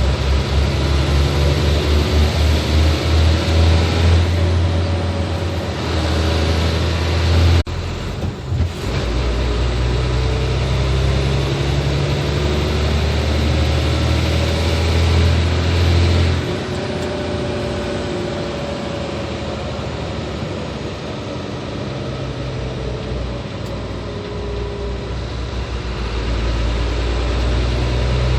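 Hino 500 truck's diesel engine running on the road, a heavy low engine note. A sudden break comes about 8 seconds in. The engine eases off about 16 seconds in and builds again near the end.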